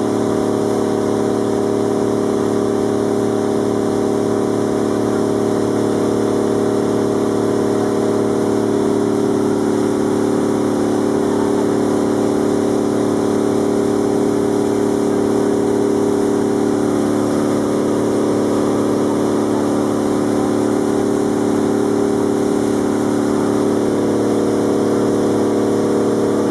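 Engine of a motorized outrigger boat running steadily under way, a constant even drone with no change in speed.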